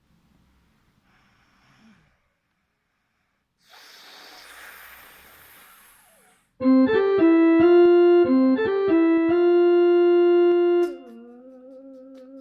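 Oppo phone ringtone: after a few seconds of faint hiss, a short electric-piano-like melody of quick notes starts about six and a half seconds in, then falls to a softer held tone with a slight wobble.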